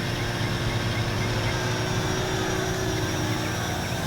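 Parrot Anafi quadcopter's propellers humming steadily as the drone climbs straight up in its automatic Rise mode, under a steady haze of outdoor noise.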